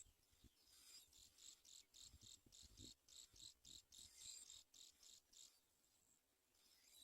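Faint cricket chirping in rapid, evenly spaced pulses, about four or five a second, fading out about two-thirds of the way through, with a few soft low thumps in the middle.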